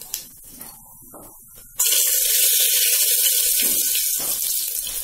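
A loud sizzle of hot refined oil in an aluminium pressure cooker starts suddenly about two seconds in, as a dried red chilli and a bay leaf drop into the oil with its panch phoron seeds already popped.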